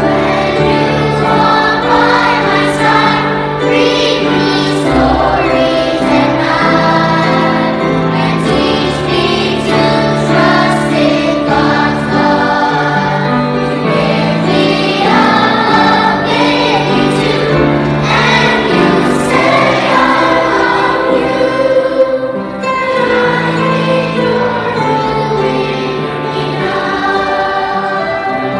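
Background music: a choir singing a song.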